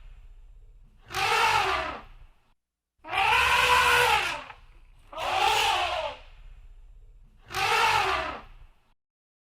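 Elephant trumpeting: four loud calls of about a second each, roughly two seconds apart, each rising and then falling in pitch.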